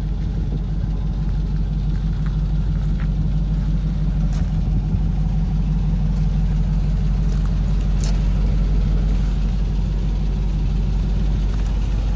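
Hummer H2's V8 engine idling steadily, a low, even rumble.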